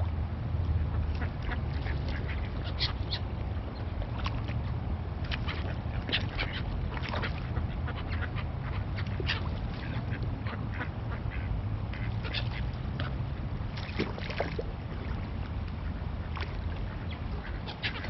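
Mallard ducks quacking in many short, scattered calls over a steady low rumble.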